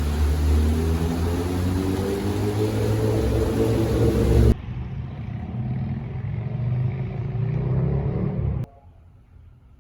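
A motor vehicle's engine accelerating, its pitch rising steadily. It is heard in two stretches, each cut off suddenly: a loud one about four and a half seconds long, then a duller, quieter one that stops about a second before the end.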